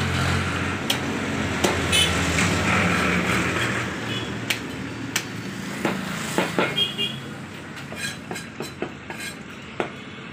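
A heavy curved chopper cutting a dressed rooster on a wooden log block: a dozen or so sharp knocks at irregular intervals, coming in a quick run of chops near the end. A low steady rumble lies under the first half.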